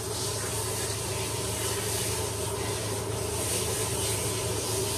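Pressurized water spraying from a bathing-system nozzle on a concentrated center stream, rinsing shampoo out of a dog's short coat: a steady hiss over a constant low hum.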